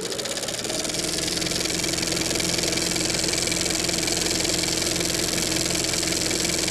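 A mechanical sound effect: a motor running steadily with a fast, even clatter over hiss and a low hum. A rising whine from its spin-up tails off in the first second.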